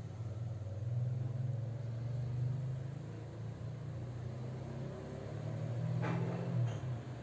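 Steady low hum of the aquarium's pump or filter, with a short rustle about six seconds in.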